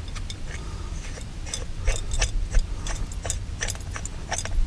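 Irregular small metallic clicks and rattles from a survival-knife shift knob being twisted and handled, with something loose rattling inside it.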